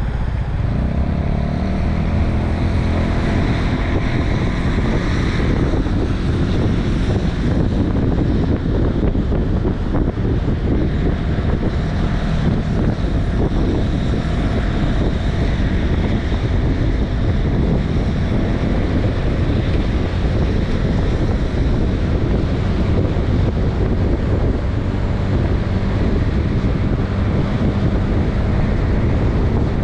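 Honda Vision 110 scooter's single-cylinder four-stroke engine running under way, its pitch rising as it picks up speed just after the start, with heavy wind rush on the microphone.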